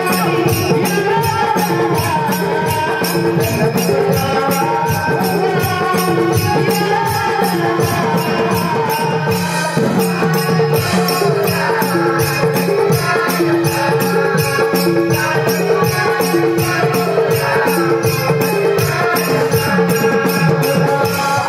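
Konkan Naman folk song: a chorus of male voices chanting together through a stage sound system, over a held drone tone and a steady, fast high-pitched percussion beat of about three to four strikes a second.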